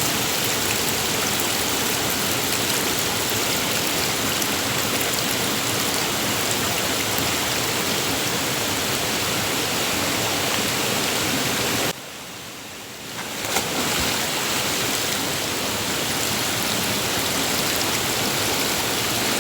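River water flowing with a steady rush. It drops away suddenly about twelve seconds in and builds back a second or two later.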